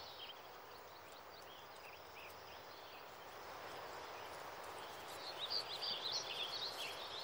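Faint forest ambience: a steady hiss with scattered high chirps of small birds, more of them about five to six seconds in.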